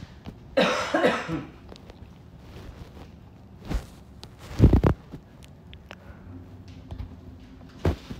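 A person coughs about half a second in. It is followed by a few dull thumps, the loudest near the middle.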